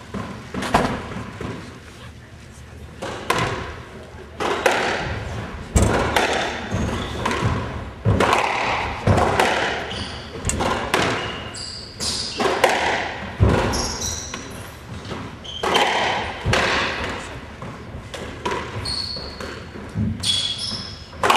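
Squash rally: the ball cracks off rackets and the court walls, each hit ringing in the enclosed court, with sneakers squeaking briefly on the hardwood floor between hits.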